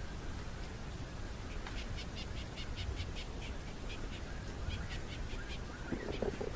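A fast run of short bird chirps, about five a second, over a steady low rumble. A lower, harsher call comes near the end.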